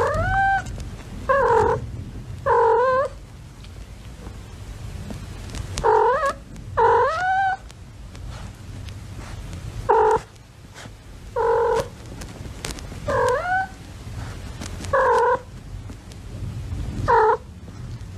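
A cat meowing about ten times, short calls one to three seconds apart, several of them rising in pitch, over a steady low rumble.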